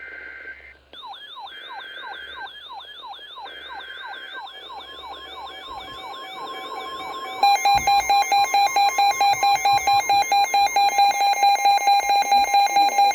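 Weather alert radio alarms going off for a new alert: a yelping siren, about three quick rising-and-falling sweeps a second, grows steadily louder. About seven and a half seconds in, a much louder fast beeping, about five beeps a second, joins over a steady tone.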